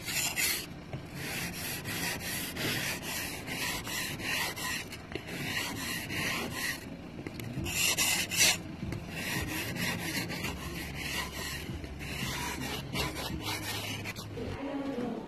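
Ice scraper scraping frost off a car window in a long series of repeated strokes, with brief pauses between runs.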